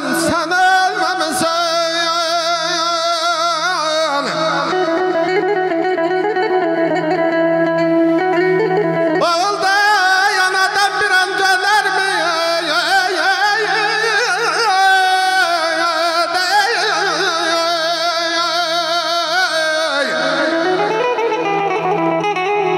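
A man singing Azerbaijani mugham into a microphone: long, ornamented held notes with heavy vibrato, over a steady low instrumental drone.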